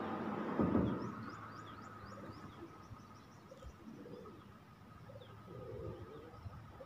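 A dove cooing in short, low notes through the second half, while small birds give quick, high, falling chirps over the first few seconds. A short rush of noise, the loudest sound, comes just under a second in.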